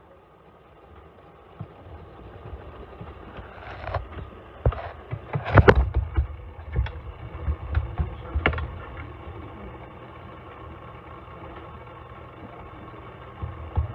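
Kitchen clatter with handling of the recording phone: a low rumble and a run of sharp knocks and clinks from about four to nine seconds in, then a quieter steady hum.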